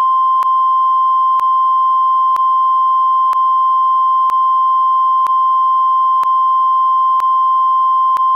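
A long, steady, high-pitched censor bleep, one unbroken tone with a faint click about once a second, masking a man's cursed outburst.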